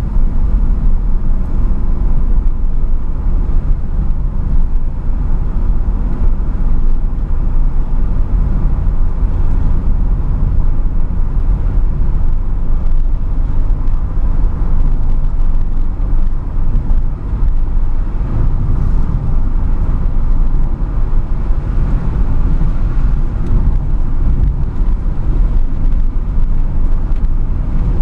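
Car driving at steady speed, heard from inside the cabin: a continuous low engine and road rumble from the tyres on the paved surface.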